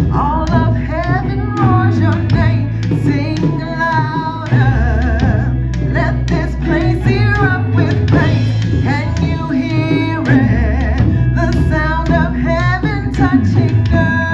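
Worship song from a church service: a voice singing held notes with vibrato over guitar and a steady low bass.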